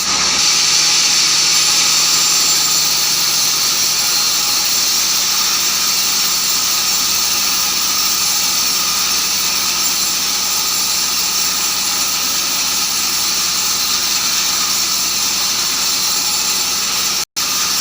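Sawmill bandsaw running and sawing keranji, a dense tropical hardwood, making a loud, steady high-pitched whine and hiss from the blade. The sound breaks off for an instant near the end.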